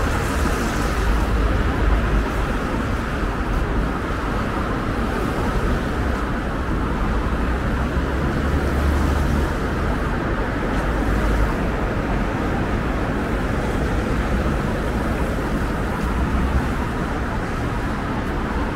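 Busy city-street traffic noise: a steady wash of passing cars with a low rumble.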